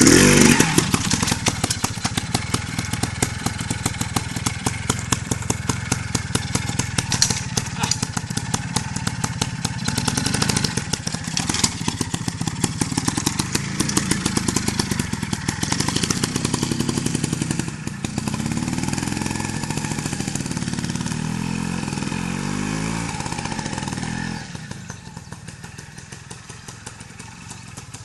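Yamaha TY 250 trials motorcycle's two-stroke single-cylinder engine running at low revs, blipped and revved in short bursts as the bike crawls over obstacles. The engine note sweeps up and down in the later part, then drops in level about 24 seconds in as the bike moves off.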